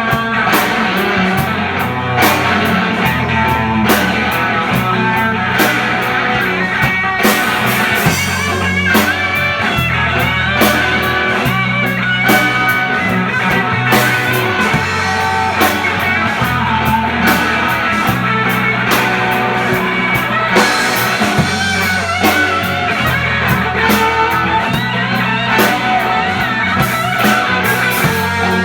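Rock band playing an instrumental passage of a song: guitar over bass and a steady drum-kit beat, with no singing.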